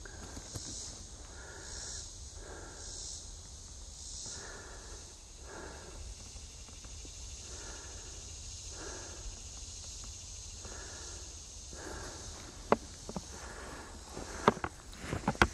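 Footsteps on a dirt forest trail, about one soft step a second. A high, pulsing insect buzz sounds through the first few seconds, and a few sharp snaps come near the end.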